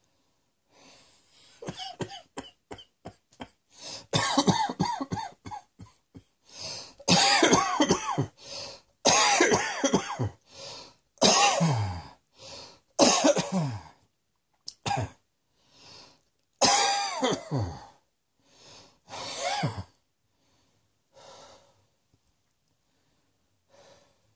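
A person coughing in repeated fits: a run of short, quick coughs, then several loud coughing bursts, some ending in a strained voice that falls in pitch, tapering off to a few faint coughs near the end.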